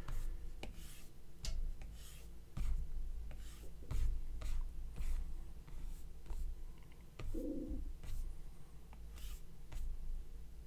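Apple Pencil tip tapping and sliding on an iPad Pro's glass screen as lines are inked: sharp taps at each touch-down, with short scratchy swishes of the strokes between them.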